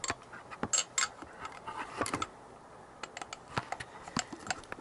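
Irregular sharp metallic clicks and taps of a hand tool on a long extension working a tight fixing bolt of a Yamaha XJ900S Diversion's carburettor-to-engine intake rubber, with a quick cluster of clicks about two seconds in.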